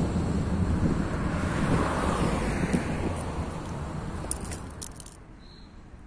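Stadler Citylink tram-train moving away along the street, its low rumble fading over several seconds with road traffic. A few sharp clicks come near the end, then the sound drops off suddenly.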